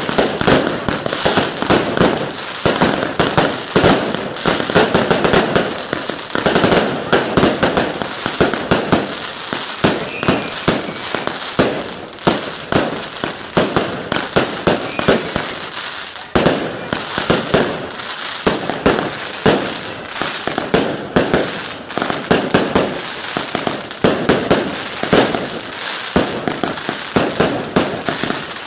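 Aerial fireworks display: a dense, unbroken run of rapid bangs and crackling as shell after shell bursts overhead.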